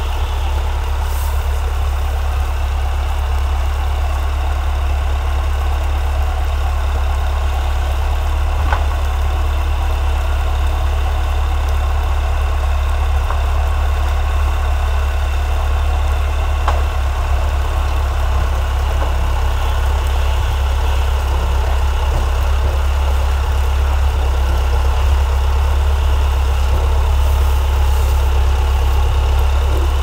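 Massey Ferguson MF50E backhoe's Perkins diesel engine running steadily, a constant low rumble with no change in speed.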